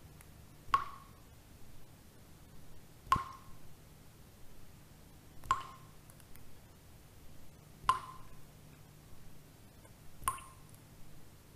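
Water drops falling at a slow, even pace, about one every two and a half seconds, each a short ringing plink, five in all. A faint low hum runs beneath them.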